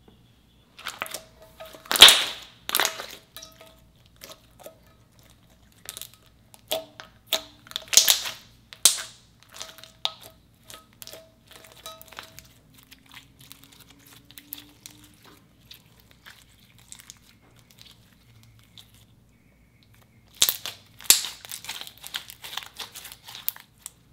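Clear slime being stretched, pulled off a marble slab and squeezed by hand, giving sticky crackles and pops in irregular bursts. The loudest burst comes about two seconds in, there are more around eight seconds, and a dense flurry of crackling comes near the end.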